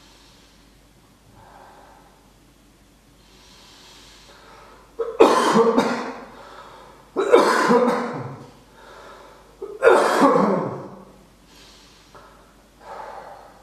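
A person coughing hard three times, each cough starting abruptly and lasting about a second, with softer breaths between them.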